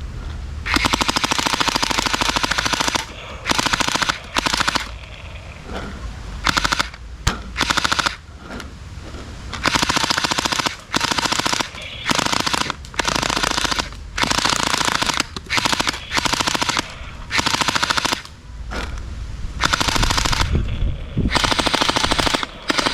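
Toy AK-47 machine gun firing in repeated rapid-fire bursts, each a dense rattle of fast shots lasting from under a second to about two seconds, with short pauses between them.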